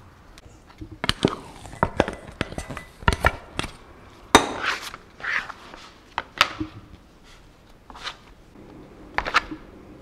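Close-up kitchen food-preparation sounds: a series of sharp taps and knocks with scraping swishes on a tray and cutting board, the sharpest knock a little over four seconds in and fewer clicks near the end.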